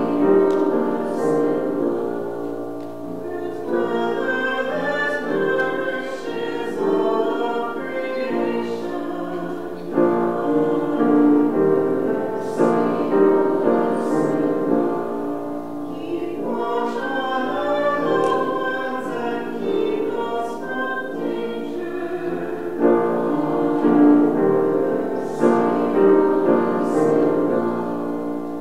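A small vocal group of a man, a woman and a girl singing a song, accompanied on grand piano.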